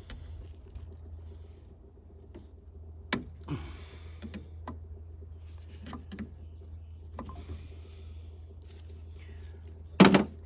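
Light plastic clicks and taps of a wiring connector and its clip being handled, a few seconds apart, with a louder knock near the end, over a steady low hum.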